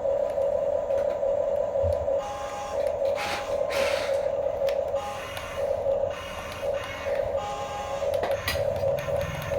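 Small electric motors and plastic gearboxes of a radio-controlled toy construction vehicle whining steadily as they run, the whine swelling and dipping, with a few short scraping bursts.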